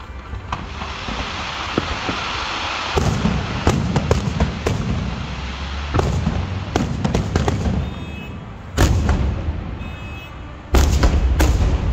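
Aerial fireworks shells bursting: a hiss building for the first few seconds, then a series of sharp bangs with a low rumble. The loudest bangs come about nine and eleven seconds in.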